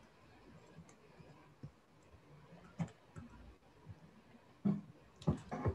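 A few faint, scattered clicks and taps over quiet room tone.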